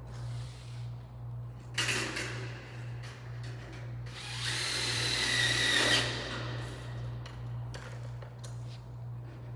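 Power drill driving pan-head screws into light-gauge steel stud framing: a short burst about two seconds in, then a longer whirring run with a steady whine from about four to six seconds in, with light metal clicks in between.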